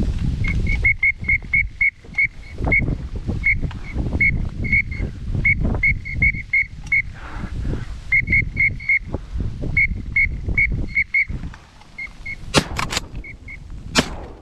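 Short, clipped whistle notes of a duck whistle call, many quick pips at one steady pitch in irregular runs, over wind rumbling on the microphone. Near the end come sharp shotgun reports, the loudest sounds.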